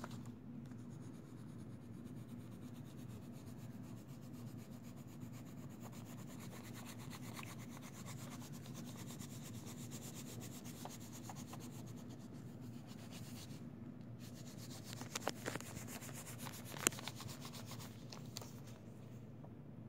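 Coloured pencil rubbing back and forth on paper, a steady soft scratching as an area is shaded in, with a few light clicks about three-quarters of the way through.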